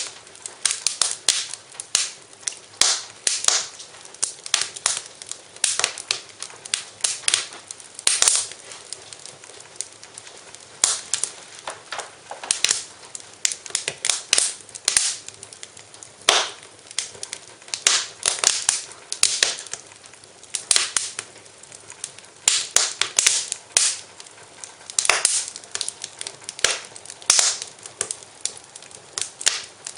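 Wood fire in a fireplace crackling, with irregular sharp pops and snaps coming several times a second over a faint hiss.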